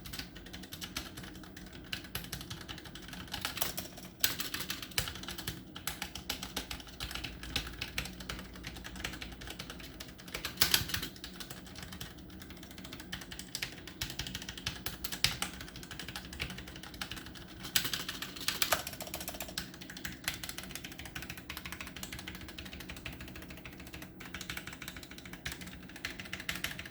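Typing on a Tecware Phantom L low-profile mechanical keyboard with red linear switches: a continuous run of keystroke clacks, with a few louder strokes standing out. The switches are not very clicky.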